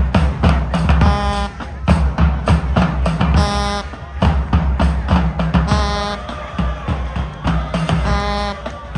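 Loud music driven by a heavy drum beat with deep bass, with a short pitched figure repeating about every two and a half seconds.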